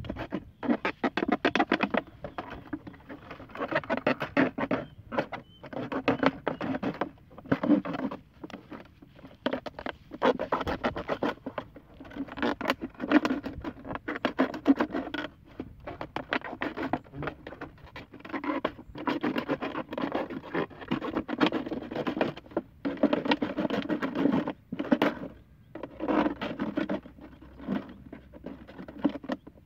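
A knife sawing through the wall of a plastic bottle: repeated scraping strokes, each about a second long, with short pauses between.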